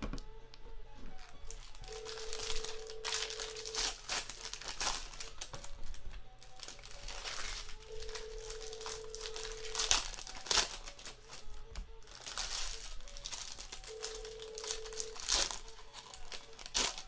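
Foil trading-card pack wrappers being crinkled and torn open by hand, in a continuous run of crackling. A steady tone sounds three times, each about a second and a half long.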